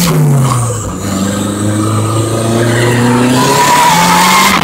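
Car engine heard from inside the cabin under track driving: the revs fall over the first second, hold steady, then climb again near the end.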